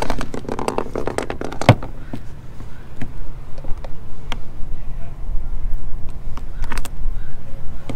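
Scattered sharp metal clicks and knocks from hand tools, including locking pliers clamped on an old metal bracket being worked loose, over a steady low rumble. A few knocks stand out, one about two seconds in and a quick pair near the end.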